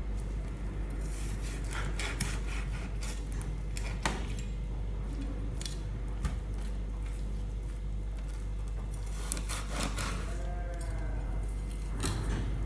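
Kitchen knife scraping and cutting at a board, with irregular rubbing and handling noises and a few sharp knocks.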